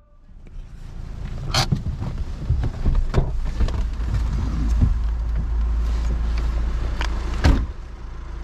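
Pickup truck cab: steady low engine and road rumble as the truck rolls slowly over a rough, potholed lane, with a few sharp knocks along the way. Near the end comes a louder clunk, and the rumble falls away.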